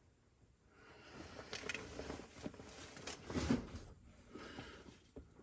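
Rustling and scattered light knocks and clicks of hand tools and a tool bag being handled, busiest about three seconds in.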